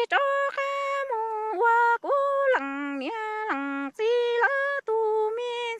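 A woman singing kwv txhiaj, Hmong sung poetry, unaccompanied: long held high notes that jump down and back up between a few pitches, in short phrases broken by brief pauses for breath.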